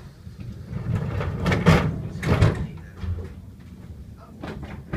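Sliding passenger doors of an Island Line Class 483 train (ex-London Underground 1938 stock) closing: a rumbling slide with a couple of knocks about two seconds in, and another knock near the end.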